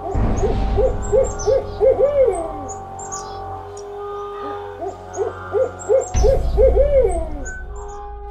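Owl hooting in two runs of about five short hoots each, the last hoot of each run drawn out and falling in pitch. Each run opens with a low rumbling whoosh, over a steady eerie drone.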